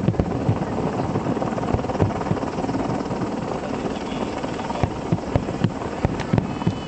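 Aerial fireworks bursting in quick succession: a dense, continuous run of low booms, with a few sharper cracks standing out in the second half.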